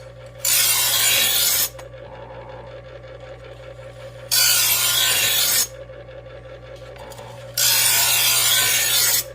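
Electric knife sharpener's motor humming steadily while a knife blade is drawn through its fine honing slot three times, each pull a harsh grinding rasp of a little over a second.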